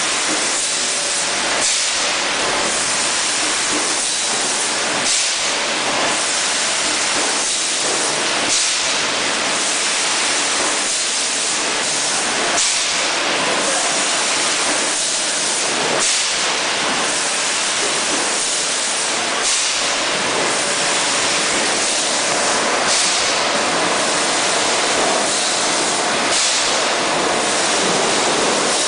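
A 6 L PET bottle filling line running: a loud, steady hiss of machinery with short, sharper hisses or clacks every second or two.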